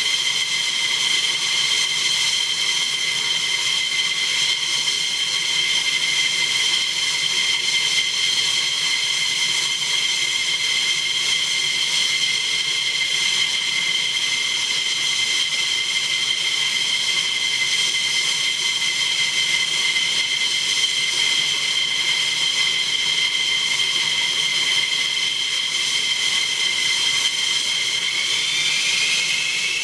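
F-15E Strike Eagle jet engines running at ground idle: a steady high-pitched whine over a rushing noise. Near the end a second whine rises in pitch as an engine spools up.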